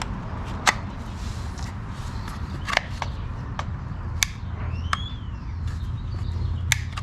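A few sharp plastic clicks, about four spread out, as the pressure washer's spray-gun trigger and trigger lock are worked by hand, over a steady low hum.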